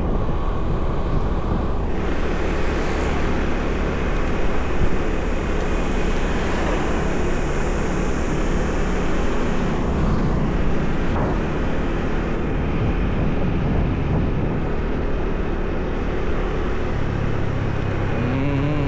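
Steady engine hum with wind and road noise from a moving vehicle, heard from on board.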